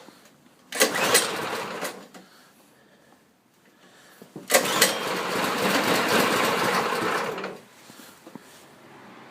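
Harbor Freight replacement engine on a Toro 726 being cranked twice without starting: about a second of cranking, a pause, then about three seconds more, stopping abruptly each time.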